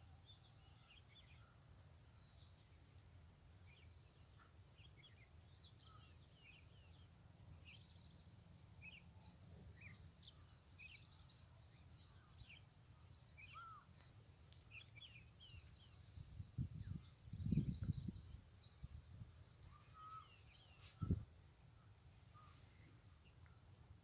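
Small birds chirping and twittering faintly, many short high calls scattered throughout over a steady low rumble. A few low thuds, the loudest sounds, come about two-thirds of the way through and once more shortly after.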